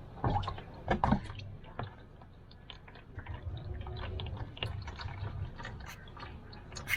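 Engine oil draining from the open drain hole of the oil pan into a catch pan, a steady pour with small drips. A few sharp knocks and clicks in the first second or so come from handling the drain plug and tools.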